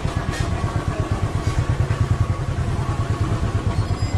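Motorcycle engine running at low speed, a steady low pulsing beat.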